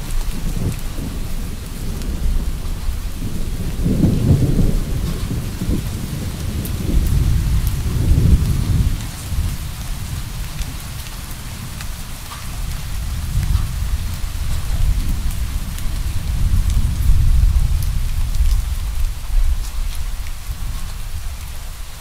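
Steady rain with distant thunder rumbling low underneath, swelling and fading several times: strongest about four and eight seconds in, and again through much of the second half.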